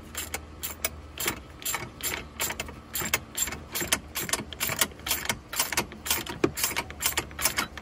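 10 mm ratcheting wrench clicking, about three or four clicks a second, as it loosens the bolt on a 12 V battery tie-down bracket.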